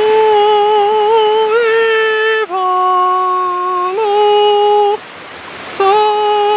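A slow, hummed or sung melody of long, held notes, each lasting a second or two, with a short break about five seconds in. A faint steady rushing sound lies underneath.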